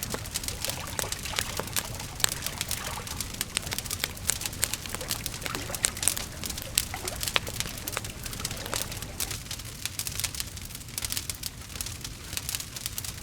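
Wood fire crackling: dense, irregular pops and snaps over a low, steady rumble.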